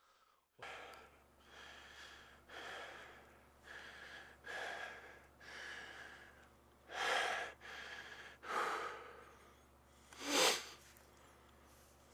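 A person breathing hard: a run of noisy breaths about once a second, with a few louder, sharper ones in the second half, over a low steady hum.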